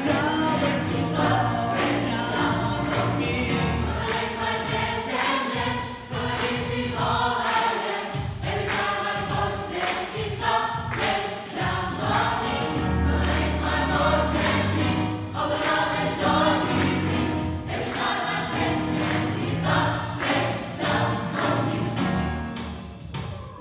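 Gospel choir singing in full voice over instrumental accompaniment with a steady beat and a low bass line. The song comes to its close near the end.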